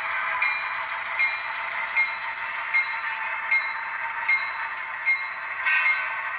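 HO scale model diesel locomotive pulling its train slowly along the track. Its mechanism makes a steady whirring hum, with a sharp click about every three-quarters of a second.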